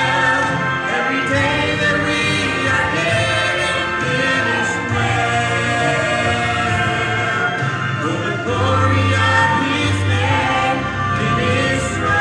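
A vocal trio, one man and two women, singing a gospel song together into handheld microphones.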